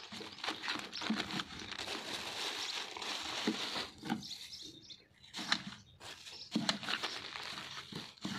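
Plastic bags and wrappers crinkling and rustling as they are handled, in irregular crackles with a short lull about halfway through.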